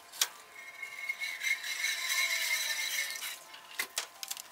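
Hand tools and metal parts at work on an engine's valve train: a sharp click, then about three seconds of steady metallic rattling, and two short knocks near the end.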